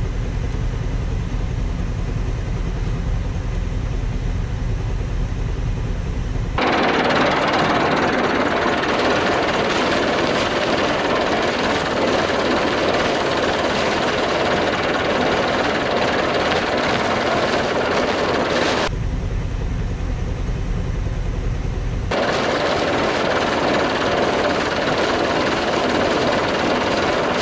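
Tractor engine running steadily, heard twice as a deep drone from inside a cab. In between, it is heard in the open with a brighter, dense rush: granular superphosphate and potassium chloride fertilizer pouring from a big bag into a spreader hopper, and the bag's plastic liner rustling as it is shaken.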